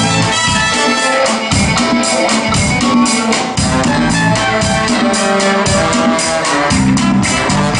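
Large live orchestra with drum kit playing a Motown number, with a steady driving beat.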